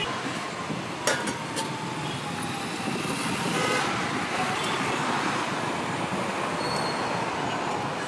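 Steady noise of busy road traffic passing, with a short vehicle horn toot about midway and a single sharp knock about a second in.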